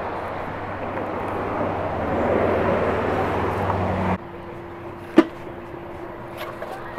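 Steady rumble and hiss of a motor vehicle running, with a low hum, cutting off abruptly about four seconds in. After that there is a faint steady hum and one sharp click.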